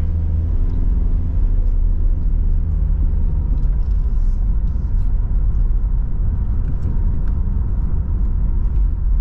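Low road and engine rumble inside a moving car's cabin. A steady low drone sits over it for the first three or four seconds.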